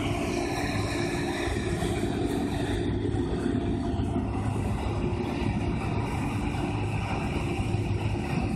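New Holland CR9090 combine harvester running under load while harvesting rapeseed. A steady deep engine drone carries higher machinery whines that drift slightly in pitch as the combine turns.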